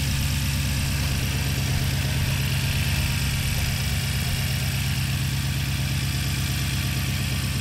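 2014 BMW M5's twin-turbo V8 idling steadily, running with freshly replaced valve stem seals.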